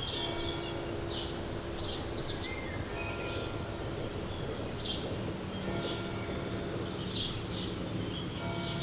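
Outdoor ambience of small birds chirping in short, scattered calls over a steady low hum.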